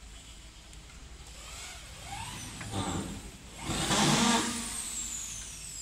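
A motor-driven machine passing by: its running noise swells to a peak about four seconds in and then fades, with a high whine sliding down in pitch as it goes.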